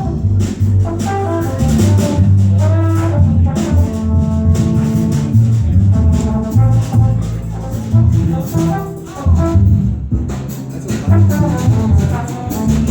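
Small jazz group playing live: a prominent bass line under melody instruments, with drums keeping time.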